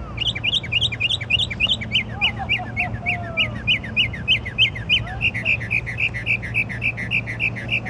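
A songbird singing a fast run of short, repeated downward-slurred notes, about four a second. About five seconds in it switches to a different, rounder repeated note.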